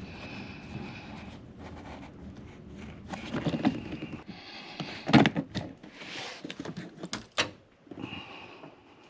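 Handling noises from work on the car's wiper and cowl parts: a clatter about three and a half seconds in, a loud knock about five seconds in, and two sharp clicks a little later.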